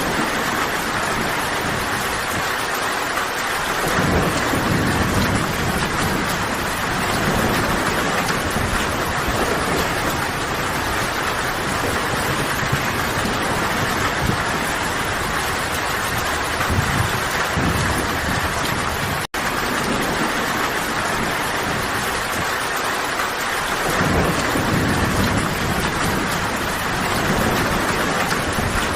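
Steady, loud rain falling, with low rolling rumbles of thunder swelling up about four seconds in and again near the end. A split-second gap just past the middle cuts the sound out.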